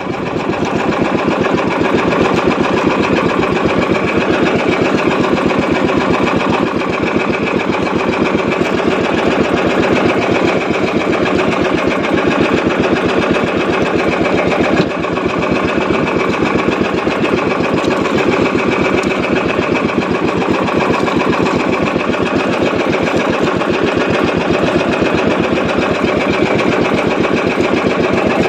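Small fishing boat's engine running steadily at close range while trolling, a fast even chugging, with a brief dip in loudness about halfway.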